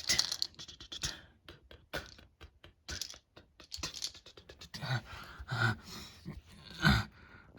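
A run of quick, sharp clicks and rustles, then several heavy breaths from a cartoon character, the loudest about seven seconds in.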